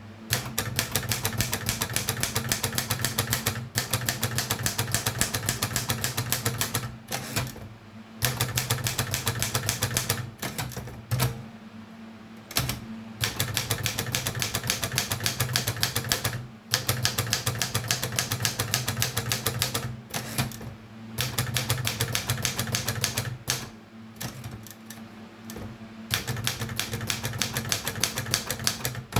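Erika 32 typewriter being typed on: fast runs of key strikes lasting a few seconds each, broken by short pauses, over a steady low hum.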